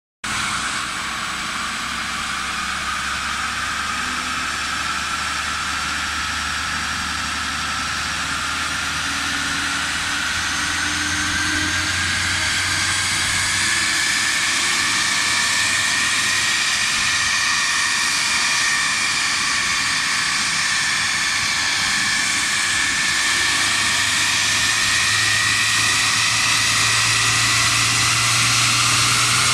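Ford Transit Custom van's 2.2 TDCi four-cylinder diesel running on a rolling-road dyno under a steady rush of noise, with a whine that climbs slowly in pitch. The engine note and overall level rise gradually as speed builds on the rollers.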